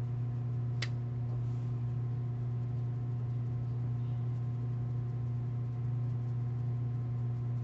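Steady low electrical hum with evenly spaced overtones, unchanging throughout, with one short faint click about a second in.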